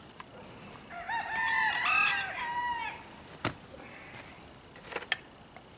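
A rooster crowing once, one crow of several parts lasting about two seconds. Two short sharp knocks follow, about a second and a half apart.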